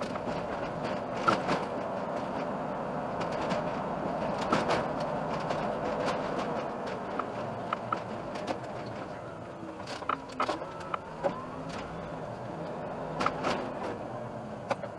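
Iveco Urbanway city bus driving, heard from inside the cab: a steady run of engine and road noise with frequent short rattles and clicks from the interior.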